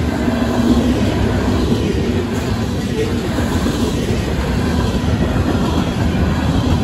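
Covered hopper cars of a Union Pacific freight train rolling past, a steady rumble and clatter of steel wheels on the rails.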